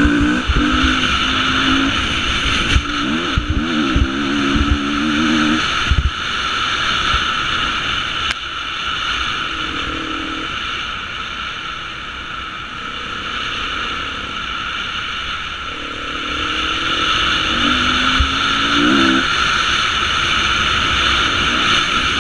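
Beta 350 enduro motorcycle's four-stroke single-cylinder engine running under throttle off-road, its note rising and falling with the revs, over a steady rush of wind. A few sharp thuds in the first six seconds.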